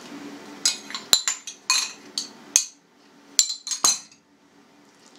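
Metal spoon scraping and clinking against a bowl as the meat filling is scooped out onto the dough: a run of sharp, ringing clinks for about three seconds, the last as the bowl is set down on the table about four seconds in.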